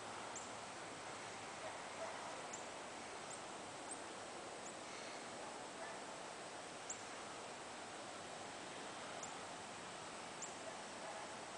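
Faint outdoor ambience: a steady, even hiss with about nine brief, very high chirps scattered through it, each dropping in pitch.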